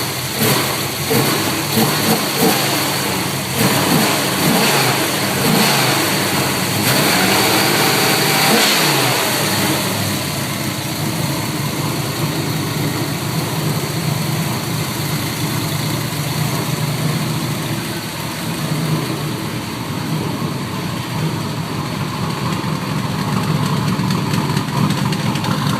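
Chevrolet Camaro's LT1 V8 engine revved in a series of short blips, pitch rising and falling, then settling about ten seconds in to a steady idle.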